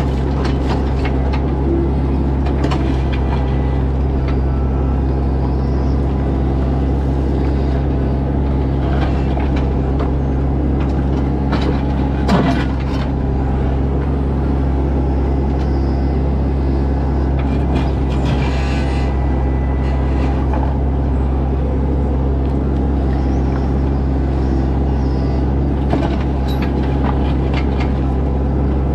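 Bobcat E26 mini excavator's diesel engine running steadily under work, with scattered clanks and scrapes as the bucket digs among stone; the loudest knock comes about halfway through.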